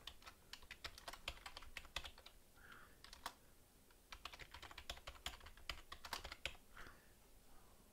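Faint typing on a computer keyboard: a quick run of keystrokes, with a short pause a little past the middle before more keys are struck.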